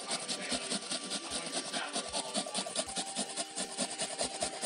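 A peeled onion being grated on a stainless-steel grater: quick, rhythmic rasping strokes, several a second, as the onion is rubbed back and forth across the holes.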